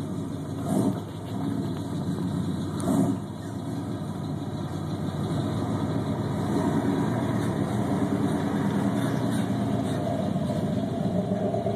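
Chevrolet K5 Blazer's engine running at low speed as the truck crawls off-road and passes close by, with two brief louder surges about a second and three seconds in, then steady.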